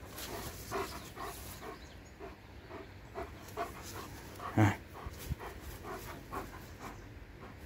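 German Shepherd panting steadily, about two breaths a second, after running after its ring toy. About four and a half seconds in there is one louder, deeper short sound.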